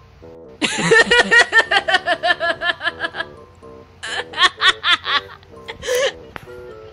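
Light background music with a laughter sound effect laid over it: a run of quick giggling pulses, then a second, shorter run about four seconds in.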